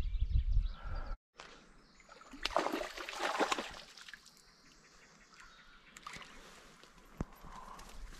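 A perch splashing into the river as it is let go, about two and a half seconds in, followed by faint trickling. Before that, a low rumble on the microphone cuts off abruptly about a second in.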